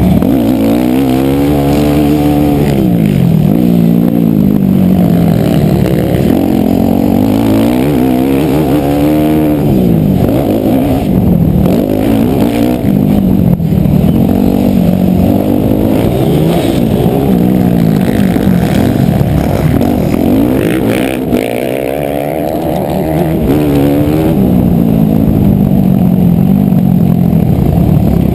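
Motocross dirt bike engine revving up and down again and again under hard riding, its pitch climbing and falling every couple of seconds, heard muffled from a helmet-mounted camera. About three-quarters of the way through the engine drops off briefly, then picks up again.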